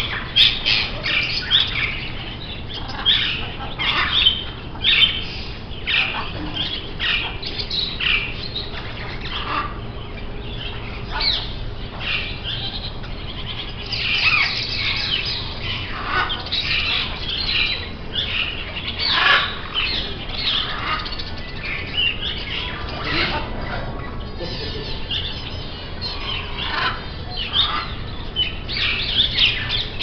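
Many parrots squawking and chirping: a continual stream of short, harsh, overlapping calls.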